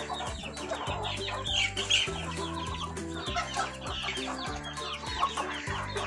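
A flock of free-range chickens clucking and calling in many short, overlapping notes while crowding to feed, with background music under it.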